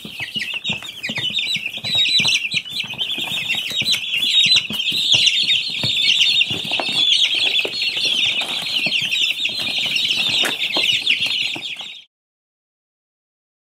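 A brood of chicks peeping all at once, a dense chorus of high cheeps with scattered light taps, cutting off abruptly about twelve seconds in.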